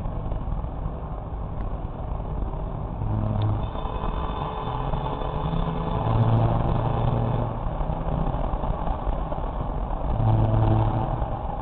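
Car driving at highway speed: a steady rumble of tyre and engine noise from inside the cabin, swelling lower and louder three times.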